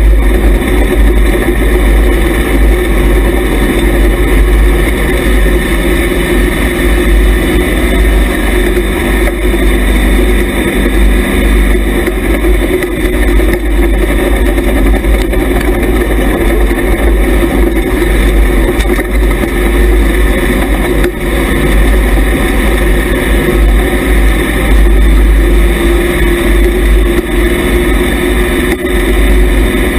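Hobby stock dirt-track race car's engine running hard at racing speed, heard loud from inside the car.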